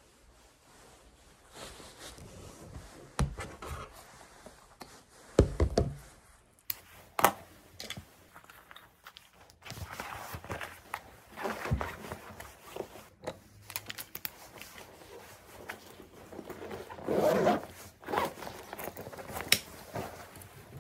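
Scattered handling noises: irregular knocks and clicks with rustling and scraping, loudest in a quick cluster of knocks about five seconds in, with a longer scraping rustle near the end.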